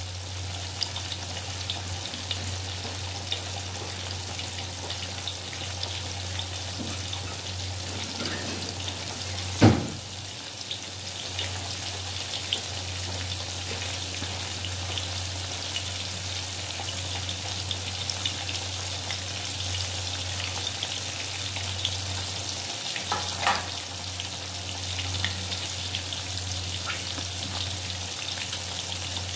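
Flour-coated chicken pieces deep-frying in a wok of hot oil: a steady sizzle with fine crackles, over a low steady hum. A single loud thump about ten seconds in.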